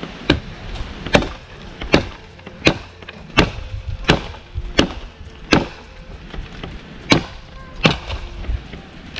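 A blade chopping into a tree limb: about ten sharp strikes, a little under a second apart, with a short pause about six seconds in.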